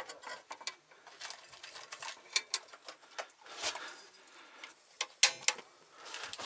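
Irregular light clicks and knocks, a few a second, with a couple of brief hissing smears: objects being handled and set down.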